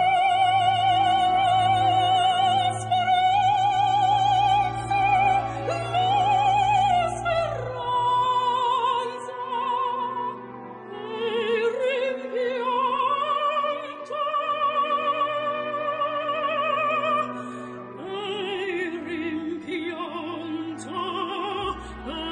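Operatic singing in long held notes with a wide vibrato, over a steady classical accompaniment.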